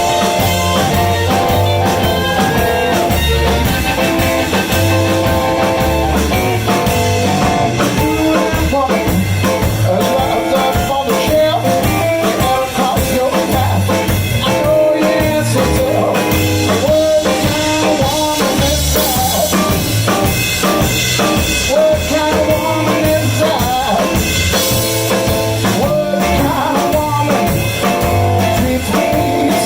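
Live blues band playing: electric guitar over bass and a drum kit keeping a steady beat.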